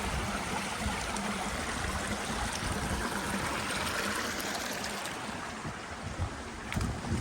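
Stream flowing: a steady rush of running water that grows fainter about five seconds in, with a few low bumps near the end.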